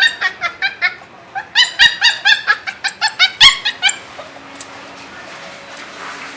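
A caged puppy crying in rapid runs of short, high-pitched yelps, about six a second, in two bursts that stop a little over halfway through, a sign of its distress at being shut in the cage.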